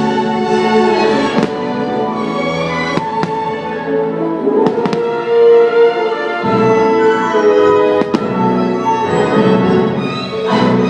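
Orchestral show music with strings, broken by several sharp bangs of fireworks bursting.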